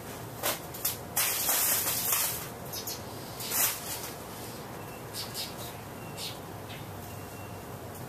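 1986 Hunter Original ceiling fan with an oil-bath stack motor running at speed, a steady low hum. Irregular short hissing whooshes come over it, the longest lasting about a second, starting just over a second in.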